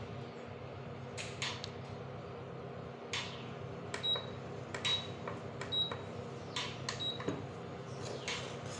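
Pigeon induction cooktop beeping four times, about a second apart, starting some four seconds in, as its touch controls are pressed to change or switch off the heat. A few short knocks and a steady low hum run underneath.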